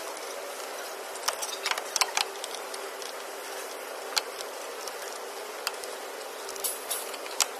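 Scattered small metallic clicks and taps as the screws are taken out of a Dahao embroidery-machine control box, over a steady hiss and low hum.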